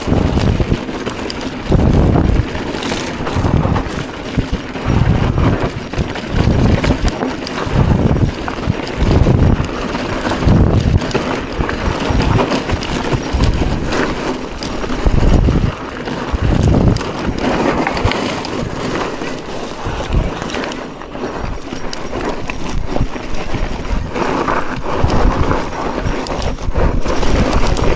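Mountain bike rolling down a rough dirt trail: tyres crunching over rocks and loose dirt, the bike rattling, with irregular low thumps from the bumps.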